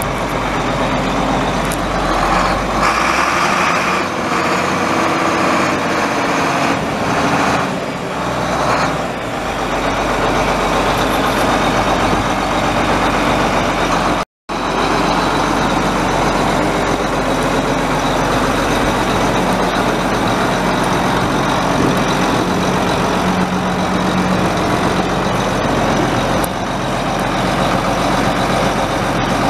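John Deere 8630 tractor's 10.0-litre six-cylinder turbo diesel running steadily, loud and even, cutting out for an instant about halfway through before carrying on.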